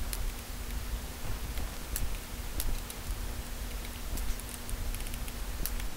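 Scattered light clicks and handling noise as small case screws are worked out of the plastic underside of an HP ze4700 laptop with a small Phillips screwdriver, over a faint steady hum.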